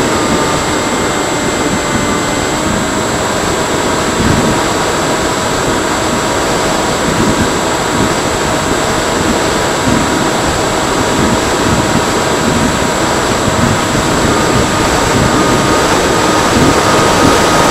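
Electric motor of a Freewing Seagull radio-controlled model plane whining steadily in flight under heavy wind rush, growing a little louder near the end.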